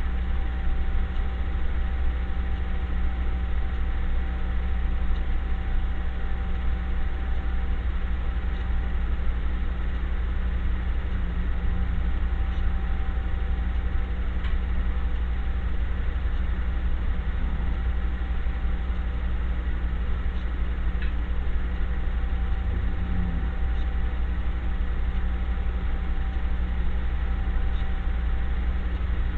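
Steady low machine hum with a few faint, steady higher tones, unchanging throughout.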